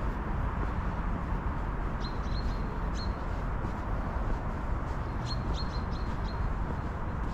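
A small bird chirping: short, sharp chirps that drop quickly in pitch, coming in quick runs of three or four about two seconds in and again around five to six seconds in. Under them runs a steady low rumble of outdoor background noise.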